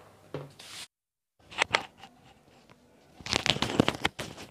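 Hands working rice-flour dough in a stainless steel bowl: a brief rub of flour, a dead gap about a second in, then scattered clicks and scrapes that thicken in the last second and a half as the dough is pressed and turned against the steel.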